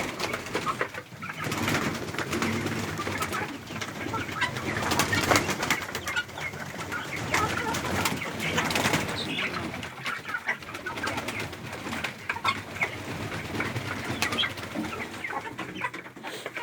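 Pigeons cooing among a mixed flock of poultry, with many short bird calls and scratchy clicks overlapping throughout.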